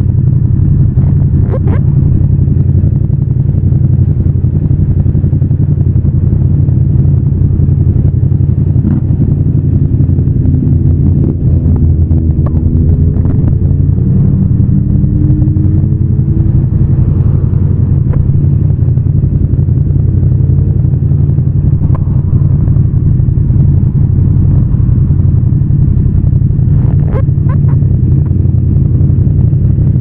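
Yamaha MT-07's 689 cc parallel-twin engine running steadily under way, loud and low. Partway through, a tone rises slowly in pitch for several seconds, then levels off.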